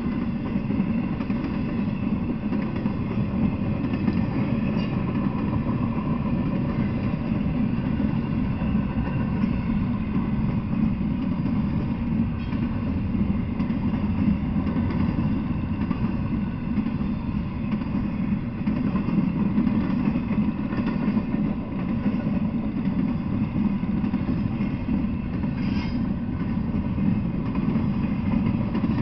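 Double-stack intermodal freight train rolling past, a steady low rumble of wheels on the rails that keeps on without a break.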